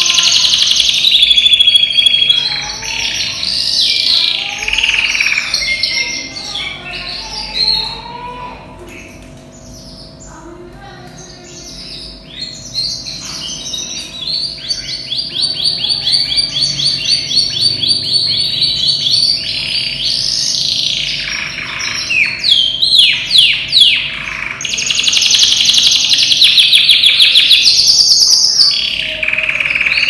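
Yellow domestic canary, a young male in full song condition, singing a long, varied song. Warbling phrases give way to a softer stretch, then a fast trill of rapidly repeated notes and sweeping whistles, then loud song again. A faint steady hum lies underneath.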